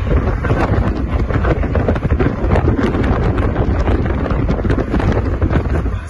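Heavy wind buffeting the microphone from a moving vehicle, over a low rumble of road noise.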